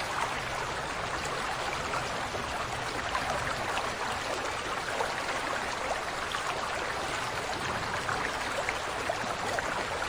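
Steady rushing water noise, like a stream, with faint scattered ticks.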